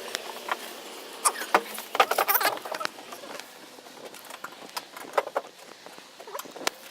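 Metal hand tools clicking and clinking in short irregular bursts, with a busy cluster about two seconds in, as work goes on at a car's wheel hub.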